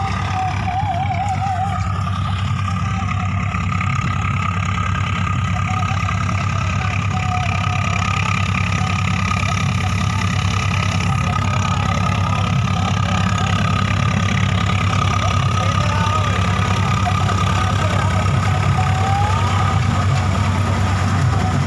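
Swaraj 855 tractor's three-cylinder diesel engine running steadily at idle, with an even, unchanging level.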